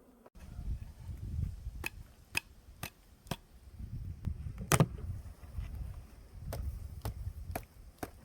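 Sharp wooden clicks and knocks from beehive frames and boxes being handled, several in runs about half a second apart with one louder knock midway, over a low rumble that swells and fades.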